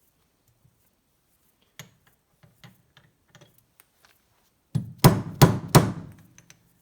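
Hammer tapping a piston pin into a piston and connecting rod: a few light handling clicks, then three sharp strikes in quick succession near the end, each with a short ring.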